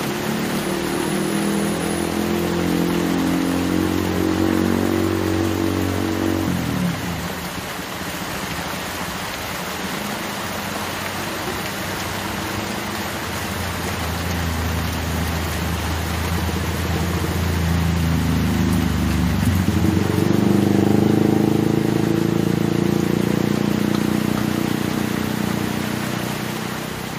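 Heavy rain pouring steadily, with the low diesel drone of big tanker trucks running along the road: one pass fades out about a quarter of the way in, and another builds from the middle to its loudest about three-quarters through.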